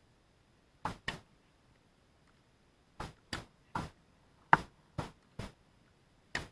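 Tennis serve and rally on a hard court: nine short, sharp pops of rackets striking the ball and the ball bouncing, the loudest about halfway through.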